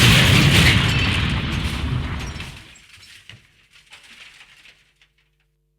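A loud explosion-like boom dying away over about two and a half seconds, followed by scattered crackles and debris clicks that fade out.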